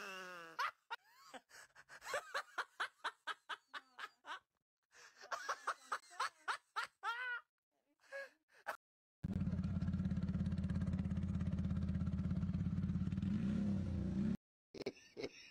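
A person laughing in quick rhythmic bursts for the first half, then a motor scooter engine running steadily for about five seconds, rising briefly near the end before cutting off suddenly.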